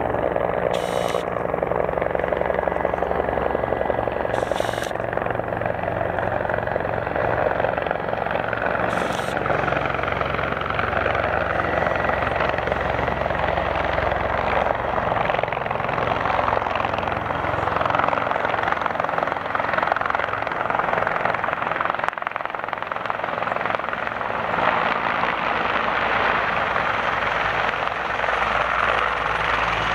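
Bell 412 helicopter's rotor and twin turboshaft engines running loud and steady, with a constant low beat under the rush of the rotor.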